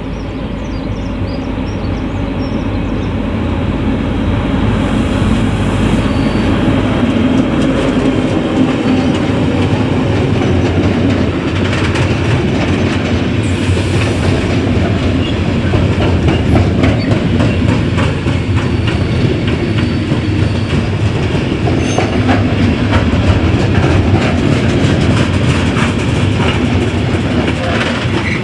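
Freight train passing close by: a V 90-family (Class 290/294) diesel locomotive's engine rumble for the first several seconds, growing louder, then a long string of covered goods wagons rolling past with a steady clickety-clack of wheels over the rail joints.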